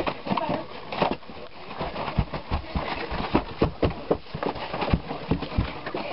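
Rapid, irregular thumps and knocks, several a second, sped up in playback: footsteps and bumps of a child walking in a cardboard box robot costume.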